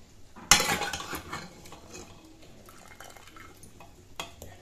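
Metal spoon clattering against a pressure cooker and a metal pan as boiled jackfruit pieces are scooped out: a loud clank about half a second in that rings on for about a second, a few lighter scrapes, and another light knock near the end.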